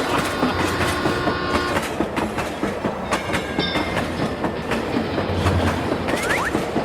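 Train running along the track, its wheels clattering rapidly over the rail joints in a clickety-clack. A held chord of steady tones sounds over it during the first second and a half.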